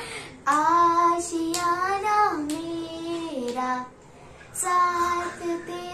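A young girl singing a song on her own, with no accompaniment, holding and sliding between long notes, with a brief pause for breath about four seconds in.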